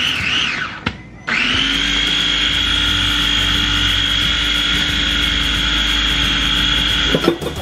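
A small countertop blender's motor starts about a second in and runs at a steady, even whine, then stops shortly before the end. Oil is being drizzled in through the lid's vent opening as it blends.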